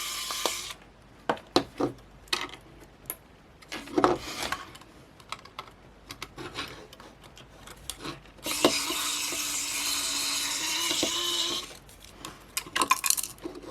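Small sharp clicks, taps and scrapes of tools and plastic parts being handled as a camera module is worked free of a cheap camera. A steady hiss stops under a second in, and another hiss starts about eight seconds in and lasts for about three seconds.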